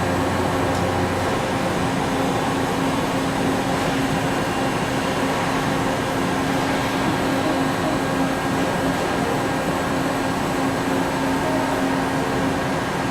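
Milltronic HBM 4 CNC horizontal boring mill running under power: a steady mechanical hum with several steady tones. A lower hum cuts off about a second in.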